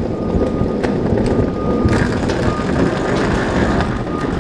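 Rainy city street noise: a steady rumble of traffic with wet hiss, and a thin, steady high tone that comes and goes.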